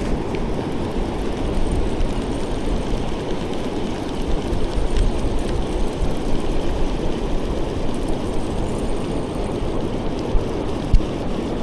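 Steady wind noise buffeting the microphone, with beach surf behind it; two short knocks near the end.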